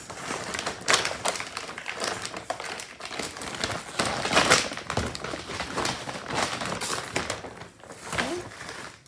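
Plastic woven feed sack crinkling and rustling as it is handled, folded and lifted, in irregular crackly bursts, loudest about one second in and again around four and a half seconds in.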